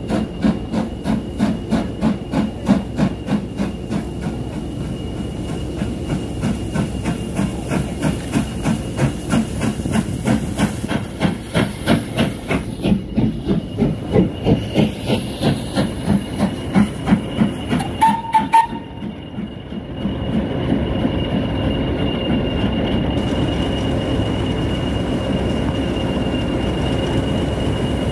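Steam locomotive working a train, its exhaust chuffing in a regular beat that grows louder as it comes near. About eighteen seconds in the chuffing stops with a brief high tone, and the train then rolls on with a steady rumble and hiss.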